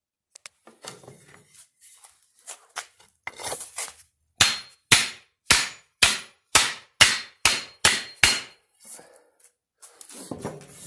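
Tomahawk-style axe knocked against a wooden block to seat its head on the hickory handle. A few light taps come first, then a series of about nine sharp wooden knocks, roughly two a second.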